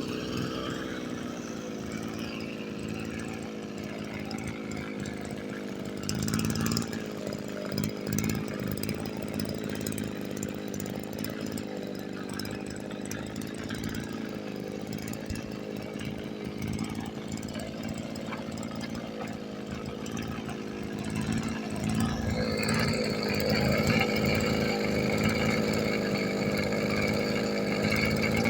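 Kioritz SRE260R brush cutter's small two-stroke engine running at a low, slightly uneven speed. About 22 s in it speeds up and gets louder. The seller says this engine makes an abnormal noise, and its throttle cable is broken.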